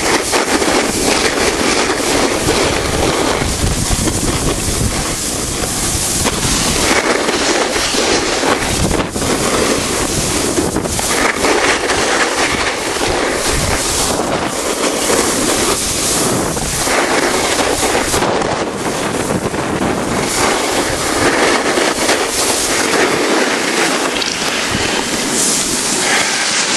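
Loud wind rushing over the camera microphone during a fast snowboard descent, mixed with the scraping hiss of the board on packed snow. The noise swells and eases every couple of seconds as the rider turns.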